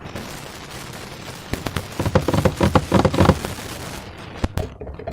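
Slime being squished by hand, with a rapid run of sharp pops and crackles from about a second and a half in that lasts nearly two seconds.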